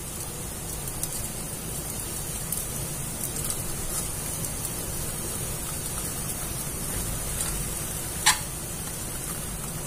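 Low, steady sizzle of an egg-dipped pancake layer frying gently in oil in a kadai on a low flame, with one sharp tap about eight seconds in.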